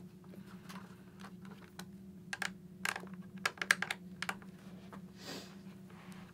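Light scattered clicks and ticks of a small Allen wrench and fasteners being worked out of a motorcycle helmet's rear plastic plate, busiest in the middle, with a soft rustle about five seconds in.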